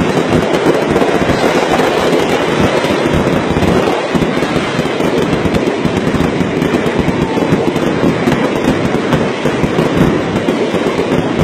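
Fireworks going off at close range: a loud, unbroken barrage of rapid bangs and crackling.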